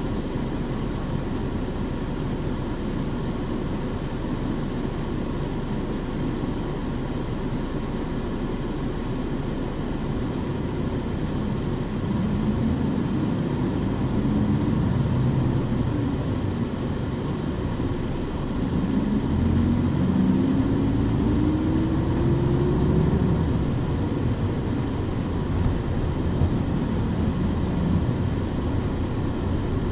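Running sound of a Nissan Diesel KC-UA460HSN city bus, heard on board: the diesel engine and drivetrain run steadily, rising in pitch as the bus pulls away about twelve seconds in and accelerates again from about nineteen seconds in.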